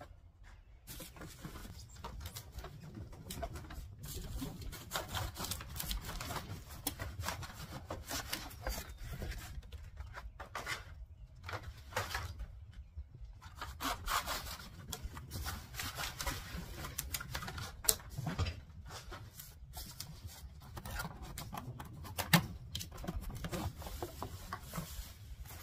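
Cardboard packaging and bubble wrap being handled: irregular rustling, rubbing and sliding of cardboard over a low rumble. Two sharp knocks in the second half are the loudest sounds.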